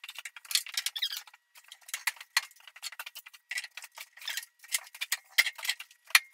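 Rapid, irregular squeaks of plastic rubbing plastic: PTFE thread-seal tape being wrapped onto a PVC male adapter, and the taped threaded PVC fitting being twisted together.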